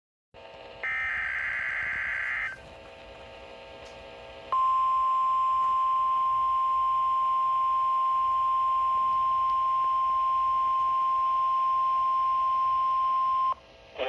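A Midland S.A.M.E. weather alert radio's speaker plays a short burst of warbling digital SAME header data. After a couple of seconds of faint hiss comes the steady 1050 Hz NOAA Weather Radio alert tone, which holds for about nine seconds and then cuts off suddenly. This is the start of an Emergency Alert System broadcast, here for a tornado watch.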